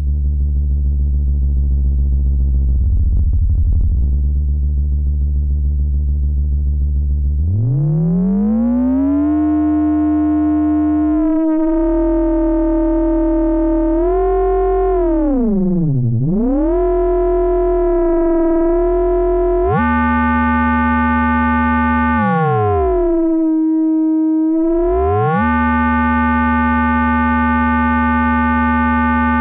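Low sustained synthesizer tone played through the CubuSynth Dual CS-20 VCF, an MS-20-style resonant filter. It starts abruptly out of silence; about seven seconds in, the resonant peak sweeps up, then glides up and down, dipping sharply twice and brightening near the middle.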